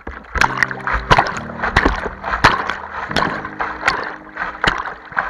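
Intro music with a steady beat, a sharp hit about every 0.7 s over held chords that change every couple of seconds, mixed with splashing river rapids.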